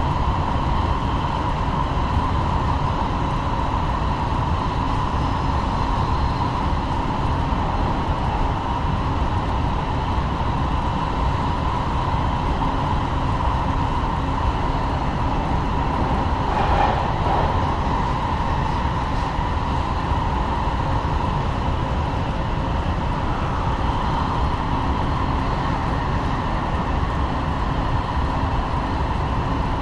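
Los Angeles Metro Rail train running between stations: a steady rumble of wheels on the track with a constant whine over it. There is a brief louder noise about 17 seconds in.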